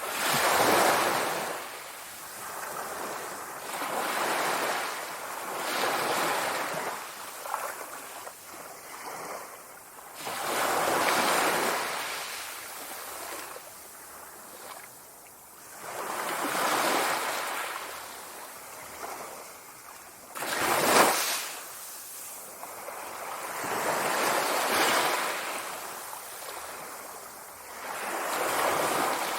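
Sea waves breaking and washing on the shore, swelling and ebbing every few seconds, with one sharper, louder break about two-thirds of the way through.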